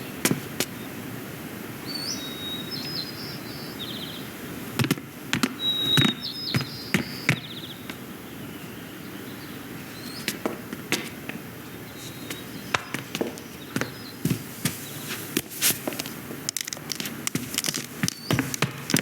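Animated-film sound effects with the music removed: scattered knocks, taps and clicks over a steady background hiss. There are two short bursts of high squeaky chirps in the first half, and the taps come quicker near the end.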